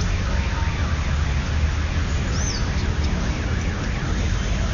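Banda de guerra playing: marching drums with bugle-like horn tones, a dense, steady sound heavy in the low end.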